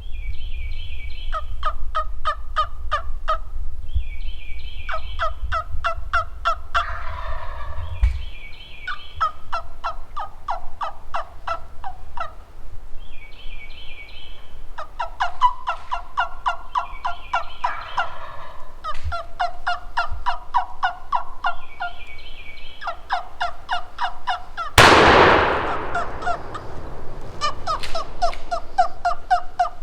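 Wild turkey gobblers gobbling again and again in rattling runs of quick notes, each run preceded by a short higher call. About 25 s in comes a single loud, sharp shotgun blast that rings out and fades over a second or so, and gobbling follows right after.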